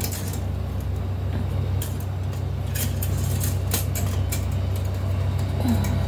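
Steady low rumble of an engine running, with scattered light clicks and taps over it.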